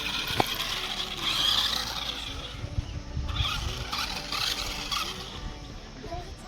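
Toy RC monster truck driving, its small electric motor whirring in bursts with tyres skidding, and a sharp click about half a second in.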